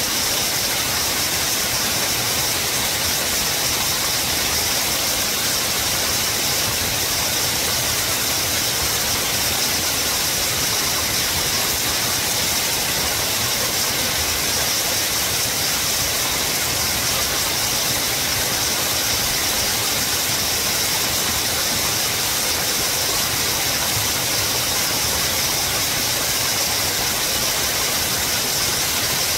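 Steady, even rushing of a mountain stream, an unbroken hiss with no beat or distinct events.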